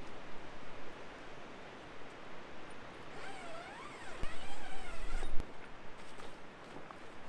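Steady wind noise, then about three seconds in the long door zipper of a fabric portable garage is run for about two seconds, its buzz wavering up and down in pitch with the speed of the pull. A sharp thump follows as the zipper stops, then fabric rustles as the door flap is pulled back.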